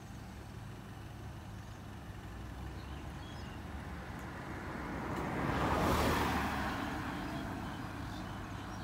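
Road traffic: a car passes close by, its tyre and engine noise swelling to a peak about six seconds in and then fading, over the steady low drone of an approaching Hino dump truck's diesel engine.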